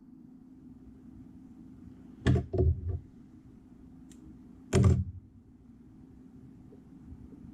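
Knocks and thumps of tools and objects handled on a fly-tying desk: three quick knocks a little over two seconds in, a faint tick, then one louder thump about halfway through, over a steady low hum.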